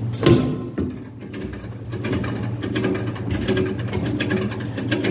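Vintage coin-operated weighing scale's mechanism working: a knock just after the start, then rapid ratchet-like clicking and gear noise from about two seconds in.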